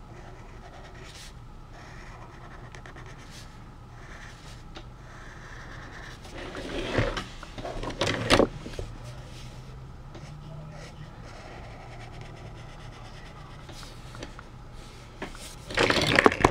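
Handling noise from a spiral-bound sketchbook being turned and slid on a desk: a few loud rubs and knocks about seven to eight seconds in and again near the end. Under it runs a steady low hum, with faint scratches of a felt-tip marker on paper in the first few seconds.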